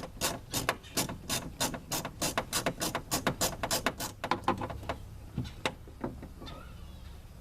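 A 3/8-inch ratchet on an extension clicking in quick, even strokes, about four or five clicks a second, as it turns out a 10 mm door-handle bolt. After about four seconds the clicking slows and thins to a few scattered clicks.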